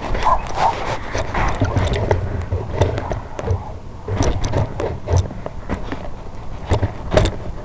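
Handling noise from the rifle and its thermal scope, picked up by the scope's built-in microphone. Scattered clicks, knocks and rubbing come as the rifle is swung and settled onto the target, over a low rumble.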